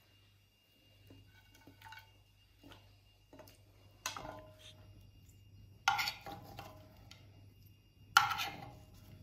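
A metal spoon clinking against cookware three times as fried pork cracklings are spooned from the frying pan onto the porridge: sharp knocks with a short ring, the last the loudest. Fainter scrapes and ticks come before them.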